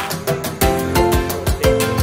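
Background music with a steady beat: regular percussion strikes under sustained pitched instrument notes.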